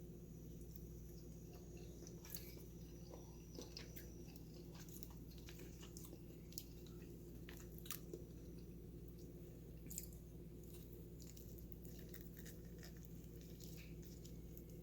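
Faint chewing with small scattered mouth clicks as a person eats cooked pickled perch, over a steady low hum.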